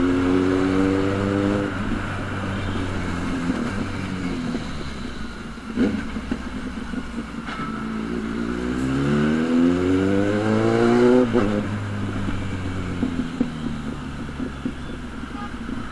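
Kawasaki Z800's inline-four engine through a loud exhaust under way: revs held, then dropping off about two seconds in. A sharp crack comes about six seconds in, then the revs climb steeply and cut off sharply about eleven seconds in, the kind of throttle-off exhaust pop the rider calls heavy.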